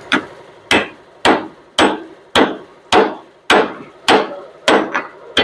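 Hammer blows on steel, a steady series of about two strikes a second, each ringing briefly. A truck's front-axle steering knuckle part is being tapped further in so it sits centred and the king pin can pass.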